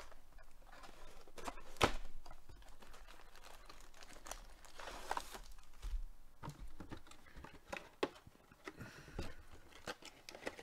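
Cardboard hobby box of Panini Select baseball cards being opened and its foil card packs pulled out and laid down: crinkling of the pack wrappers with scattered taps and rustles, and a sharp knock about two seconds in.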